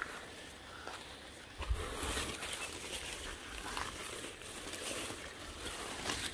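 Rustling of cut durian leaves and twigs as a gloved hand picks up and handles a cut-off branch, with a soft thump about two seconds in.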